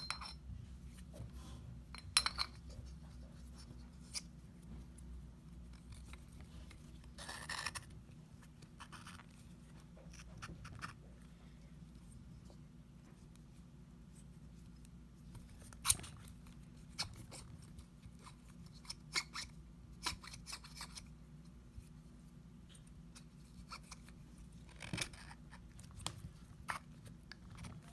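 Small metal clicks and short scrapes of a sealed go-kart axle bearing being pushed and twisted by hand into its cassette housing, with a longer scrape about seven seconds in and a sharp click about halfway through. A steady low room hum lies underneath.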